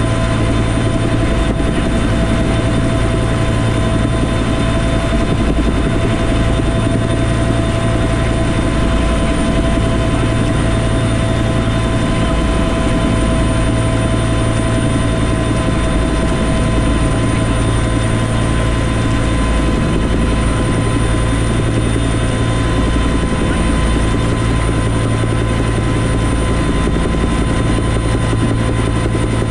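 Bell UH-1 Huey helicopter in cruising flight, heard from inside the cockpit: a steady drone of the main rotor and Lycoming T53 turboshaft engine, with a constant high turbine whine over a low rumble.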